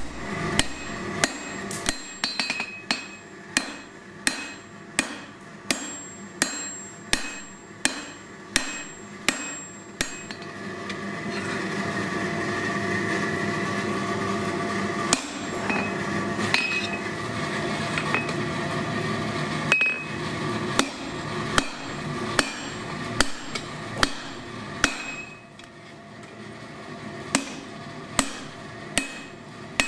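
Hand hammer striking a red-hot steel bar on an anvil, forging the jaw of a pair of blacksmith's tongs. The blows come steadily at about one and a half a second, each with a short ring. They pause for a few seconds partway through, leaving a steady hum, then resume less regularly.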